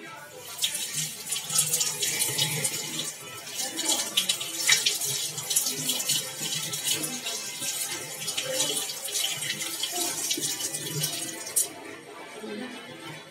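Kitchen tap turned on and water running and splashing into the sink over hands rinsing a piece of chicken; the tap is shut off near the end and the splashing stops suddenly.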